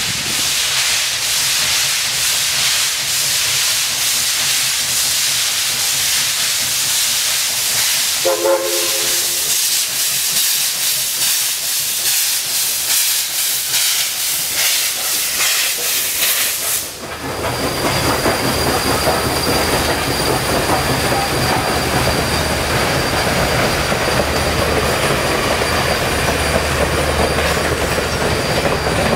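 Southern Railway 4501 steam locomotive passing close by, venting steam with a loud steady hiss and regular exhaust chuffs, and a short whistle note about eight seconds in. The hiss cuts off suddenly at about 17 seconds, leaving the rumble and wheel clatter of the passenger cars rolling past.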